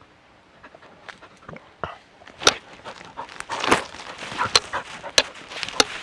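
Dog wearing a harness camera moving through forest brush: rustling and panting right at the microphone, with five sharp knocks or snaps from about two and a half seconds in.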